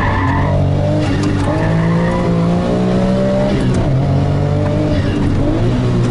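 Sports car engine heard from inside the cabin, accelerating hard on track with its pitch rising for a couple of seconds. The pitch drops briefly about four seconds in, then holds steady.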